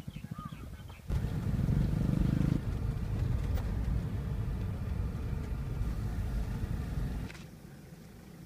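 Steady low rumble of a vehicle's engine and road noise, heard from inside the cab while driving. It starts suddenly about a second in and drops away abruptly near the end.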